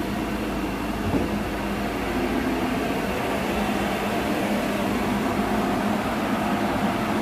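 Steady machinery drone in a dyno bay, an even rushing noise with a low hum under it, from a remapped turbo-diesel Ford Ranger pickup on a chassis dynamometer with its large cooling blower running.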